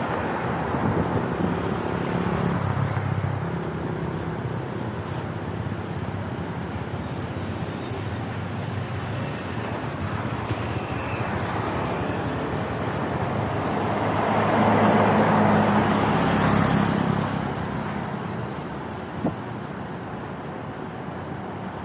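Street traffic: motor vehicles running and passing, one passing close and loudest about fifteen seconds in. A single short click near the end.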